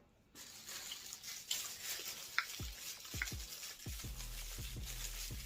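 Light knocks and rustling from takeout food containers being handled, with two short high squeaks near the middle and a low steady hum setting in about four seconds in.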